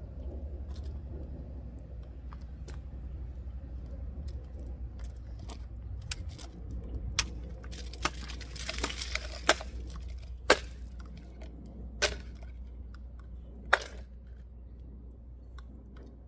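A Leatherman Sidekick multitool's blade being struck into a test material: about half a dozen sharp knocks spread over several seconds, with a short scraping rush in the middle, over a steady low hum.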